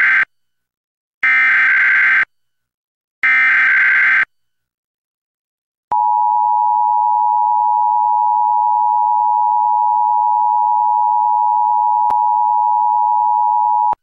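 Emergency Alert System Required Monthly Test audio: the end of one SAME header data burst and two more one-second bursts of screechy digital data, a pause of about two seconds, then the EAS two-tone attention signal (853 and 960 Hz) starting about six seconds in and held steadily for about eight seconds.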